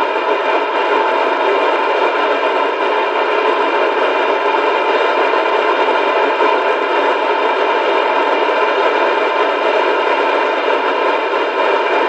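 A loud, steady hiss of noise, like static, with no change in level or pitch.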